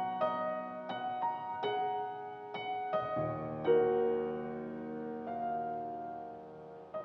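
Grand piano played solo: a slow line of single notes, then a deep bass note and a full chord about halfway through that rings on and slowly fades, with a new note struck just at the end.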